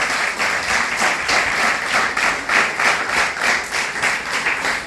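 An audience applauding: many hands clapping together in a dense, continuous patter.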